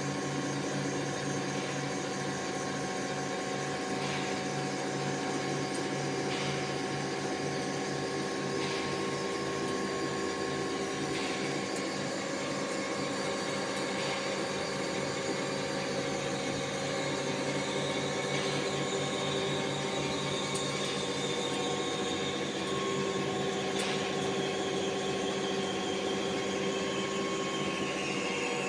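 Special-purpose twin-side four-axis CNC turning machine running: a steady mechanical hum of several held tones, with a faint tick about every two and a half seconds. A high whine slowly drops in pitch over the last several seconds.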